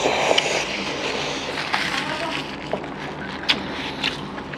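Two people eating rice mixed with tinned fish curry by hand: wet squelching of the curry-soaked rice, with chewing and a few sharp mouth clicks.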